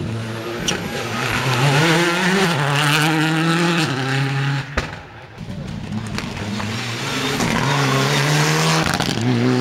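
Rally cars' engines accelerating hard past one after another. The first climbs in pitch for about three seconds and fades near the five-second mark. A second, the Mitsubishi Lancer Evolution IX's turbocharged four-cylinder, then rises in pitch again toward the end.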